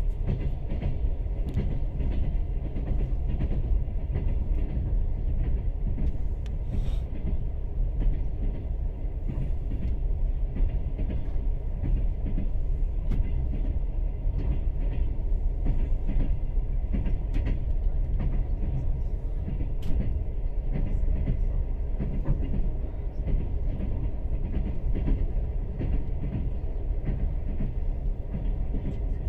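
A moving train heard from inside the carriage: its wheels make a continuous low rumble on the rails, with only occasional clacks at the rail joints.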